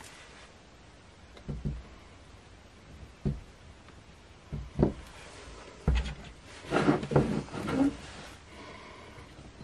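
Scattered knocks and handling noises of wooden strips and a small tin being moved about on a worktop, with a busier bit of clatter about seven seconds in.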